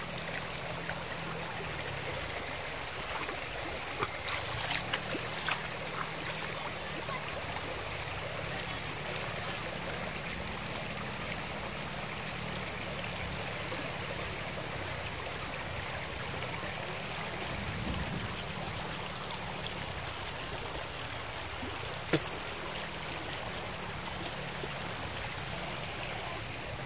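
Shallow, rocky river rushing over stones in a steady, even wash. A few light clicks come about four to six seconds in, and one sharp click near the end.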